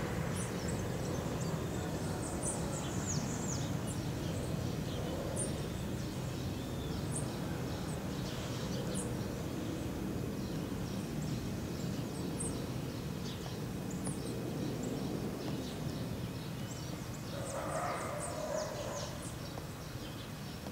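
Distant jet airliner passing overhead: a steady low rumble that slowly eases, with small birds chirping over it.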